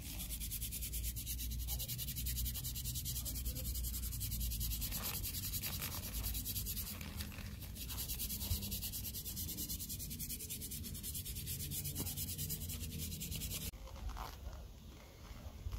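Sandpaper rubbed back and forth over a carved birch wood spatula in rapid strokes, a steady dry rasp that stops abruptly near the end.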